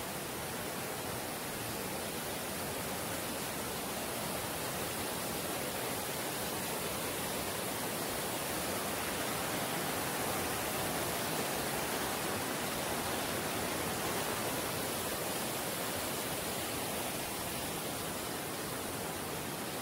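Mountain river rushing over boulders through white-water rapids, a steady, unbroken rush of water that grows a little louder midway.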